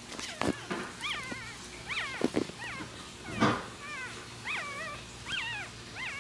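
Newborn Poodle/Pomeranian puppies squeaking: a string of short, high-pitched squeals that rise and fall in pitch. Mixed in are a few soft knocks and thumps from handling, the loudest about halfway through.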